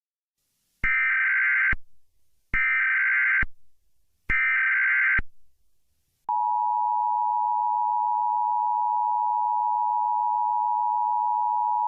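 Emergency Alert System tones: three short screechy SAME digital header bursts, each about a second long, then, about six seconds in, the steady two-tone EAS attention signal begins and holds.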